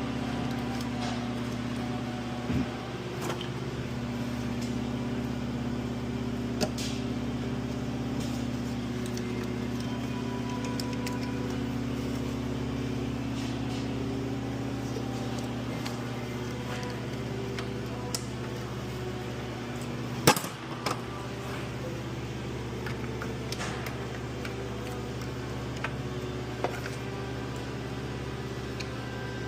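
Steady low background hum, with scattered clicks and knocks of hand tools and parts being handled during engine disassembly. The sharpest knock comes about twenty seconds in.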